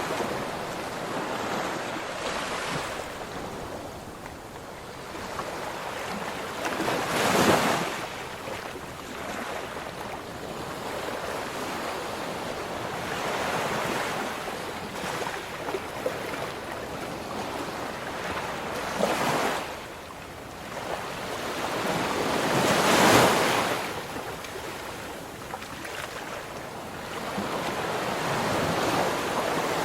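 Ocean waves breaking and washing on a shore, with louder breakers about a quarter of the way in, around two-thirds of the way in, and again shortly after.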